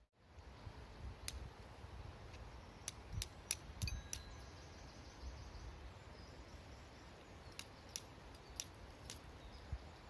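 Flint being struck against the steel of a tinderbox to throw sparks: about ten sharp, high clicks in two irregular runs, several close together.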